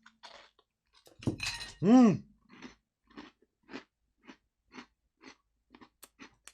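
A person chewing crunchy Oreo cookie wafers with the cream filling scraped out, crunching about twice a second. There is a short hum of the voice about two seconds in.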